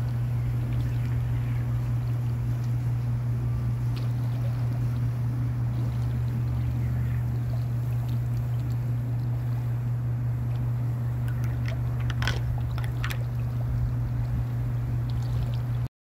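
A steady low hum, with a few short sharp sounds about twelve and thirteen seconds in.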